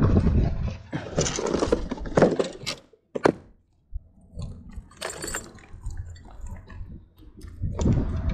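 Fishing lures and tackle clattering and rattling as a tackle box is rummaged through, with a sharp click about three seconds in.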